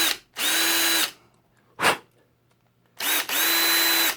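Power drill with a 3/16-inch metal bit drilling out the base rivet of a diecast toy car. It runs in short bursts of about a second, starting and stopping several times at a steady pitch, with one very brief blip in between.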